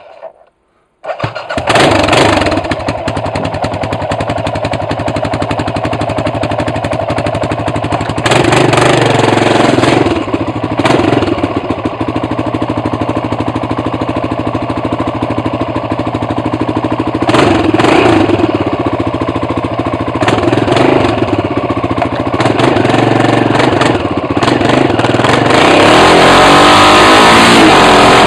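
BMW F 650 motorcycle engine running with no exhaust fitted, loud and raw. It goes briefly quiet, catches again about a second in and settles into a fast idle. The throttle is blipped several times, with a longer rising rev near the end.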